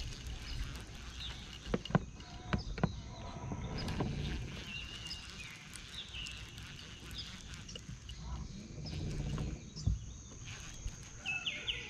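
A fishing rod and baitcasting reel handled in the hands: a few sharp clicks and knocks over a low, steady outdoor rumble.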